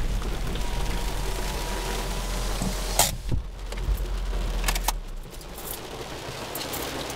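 Honda car's engine running with a low hum inside the cabin, then switched off about five seconds in. Sharp clicks come about three seconds in and just before the engine stops, with lighter clicks afterward, from the controls and keys being handled.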